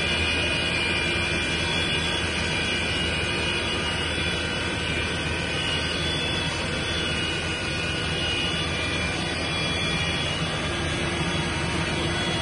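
Continuous foam production line machinery running: a steady, even roar with several constant whining tones that holds unchanged throughout.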